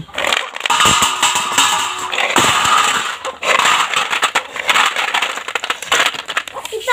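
Wet snail shells poured from a pot onto a stainless steel plate, clattering and rattling against the metal and each other in a dense run of clicks, with water splashing as they land.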